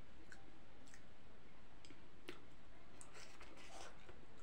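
Chewing and mouth clicks of someone eating, a few sharp scattered clicks over a steady low hiss.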